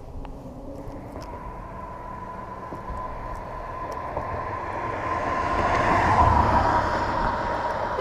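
A vehicle passing by: a steady whine with a rush of noise that swells to a peak about six seconds in and then eases off.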